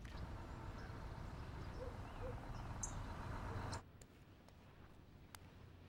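Quiet room tone: a low steady hum with two faint short chirps about two seconds in. Just before four seconds it drops off to an even quieter background with a few faint ticks.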